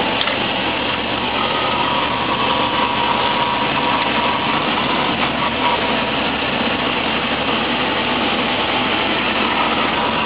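MAN 18.232 truck's diesel engine running steadily while the truck drives along, heard from inside the cab.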